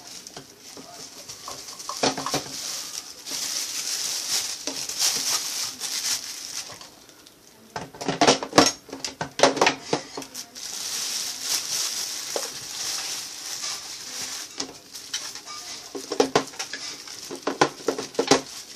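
A boxed humidifier being unpacked: packaging rustles, and hard plastic parts click and knock as they are handled, with bursts of clatter about eight seconds in and again near the end.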